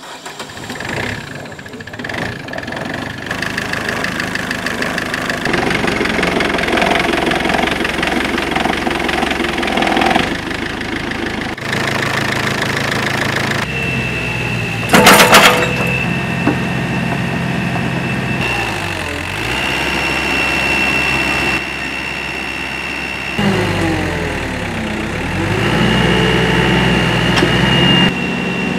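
Komatsu 80 excavator's diesel engine running, building up over the first few seconds. Its pitch dips and recovers a few times as it takes load, and there is one brief, very loud sound about halfway through.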